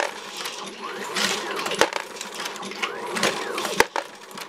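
Dillon 1050 progressive reloading press driven by an AmmoBot motor, cycling automatically. A motor whir rises and falls in pitch with each stroke, with smaller knocks and a loud sharp clack about every two seconds as the shell plate indexes.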